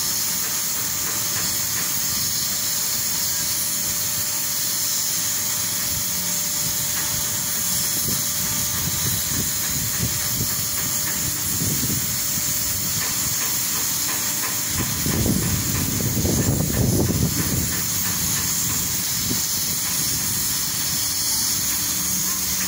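Small waves washing in over a shallow sandy shore in a steady hiss, with a louder low rumble from about fifteen to eighteen seconds in.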